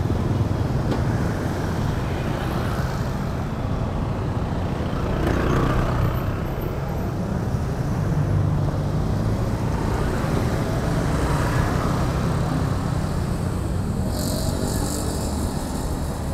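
Street traffic: motorcycles and cars passing close by, a steady engine and tyre rumble that swells each time one goes past. A brief high buzz sounds about fourteen seconds in.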